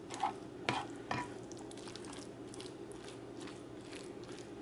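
Spatula stirring a thick, creamy ground beef and broccoli mixture in an enamel baking pan: soft wet scraping and squishing, with a few sharper scrapes in the first second or so, then quieter, over a faint steady hum.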